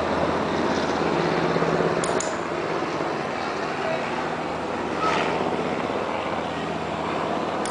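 Steady urban traffic hum with a low engine drone, and a couple of brief faint clicks.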